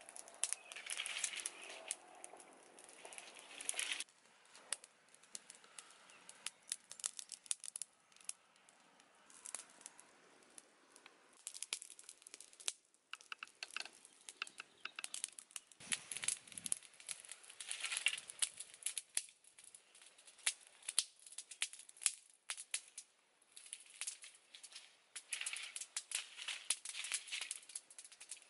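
Small wood fire crackling, with dry leaves and twigs crinkling and snapping as they are handled: irregular sharp clicks in dense clusters, and a few dull knocks about 16 seconds in.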